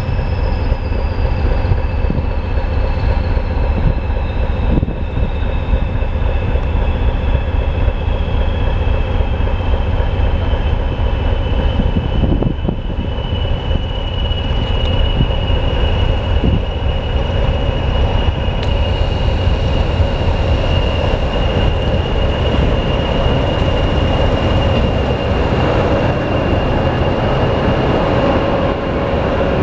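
Diesel locomotive and train running, a steady heavy rumble with a high whine that falls in pitch over the first dozen seconds or so and then holds steady. A few faint knocks sound along the way.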